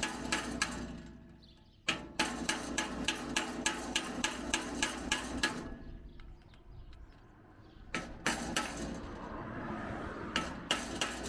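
Hammer blows in three quick runs, about three strikes a second, each with a short ring, with a pause of a couple of seconds between the second and third runs.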